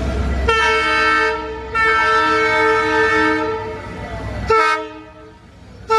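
WDP4D diesel locomotive sounding its horn as a warning at a level crossing: a short blast about half a second in, a longer blast of about a second and a half, then a brief toot near the end, over the low rumble of the engine.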